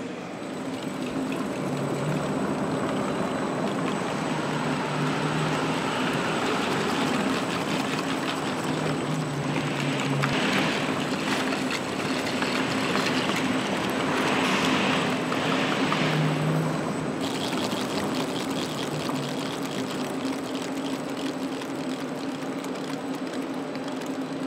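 Steady mechanical hum and rushing noise of a Porsche Taycan's wheels turning on the rollers of an end-of-line test stand at low speed, growing a little louder in the middle and easing off near the end.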